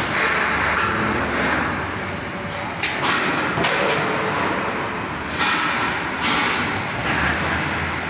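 Sheet-steel cable tray rattling and scraping as it is handled, with a couple of sharp metal clanks about three seconds in, over a steady hum of industrial noise.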